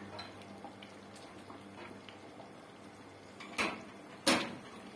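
Kitchenware knocking against a cooking pot: two sharp clinks a little under a second apart near the end, over faint crackling from the pot of tomato sauce on the stove and a low steady hum.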